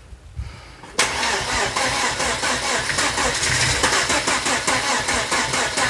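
Car engine cranking on its starter motor with a fast, even churn, beginning suddenly about a second in. The engine turns over but does not fire: it has just been reassembled after cylinder head and timing belt work.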